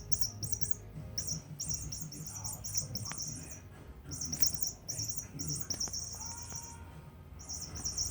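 A cat's squeaky toy squeaking in rapid, high-pitched runs of chirps, over and over with short pauses, as the cat plays with it.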